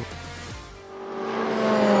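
A race car's engine, growing steadily louder from about a second in as its pitch eases slightly down, over background music.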